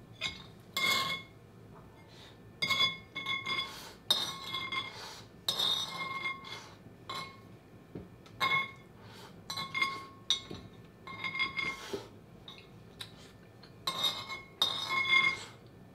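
An eating utensil clinking and scraping against a ceramic dish of fried rice, about a dozen times at irregular intervals. The dish rings at the same few pitches with each touch.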